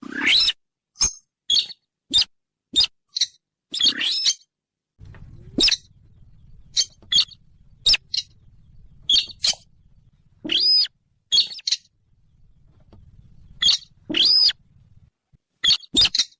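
Sintar bird calls played as a hunting lure: a rapid, irregular series of short, sharp high-pitched chirps, broken every few seconds by a longer arching squeal. A faint low hum runs beneath the middle of the series.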